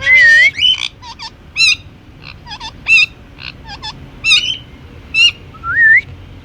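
Indian ringneck parakeet calling. It opens with a warbling call, follows with a string of short, sharp chirps about once a second, and gives a rising whistle near the end.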